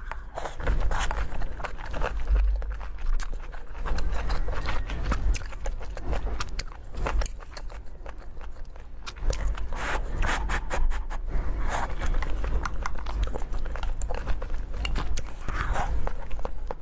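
Close-up eating sounds: a person biting and chewing food, with many quick crunching clicks over a steady low rumble.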